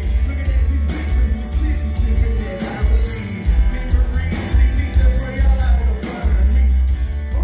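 A live band playing a song: a man sings lead over electric and acoustic guitars, with a heavy, booming low end.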